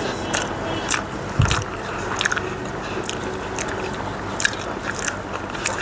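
A person chewing a mouthful of hand-mixed rice, with wet, irregular mouth clicks and smacks, and fingers mixing rice on a metal plate.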